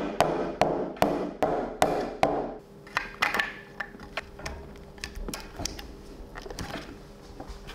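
A small hammer tapping press-fit shaft seals and bearings into a 3D-printed PLA pump housing: about six light taps, roughly two and a half a second, for the first two and a half seconds. After that come quieter clicks and knocks of the plastic housing being handled.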